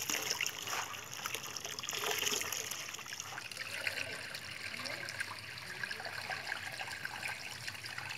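Water from a garden hose pouring into a plastic basin of pomegranate arils, with splashing as hands stir and scoop the seeds. The pouring eases about three and a half seconds in, leaving trickling and small splashes.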